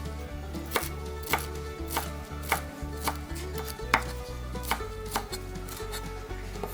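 Kitchen knife chopping on a cutting board: about eight separate strikes, one every half second or so.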